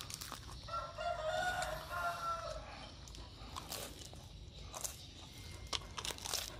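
A long, pitched animal call lasting about two seconds, starting about a second in, followed by a few sharp clicks.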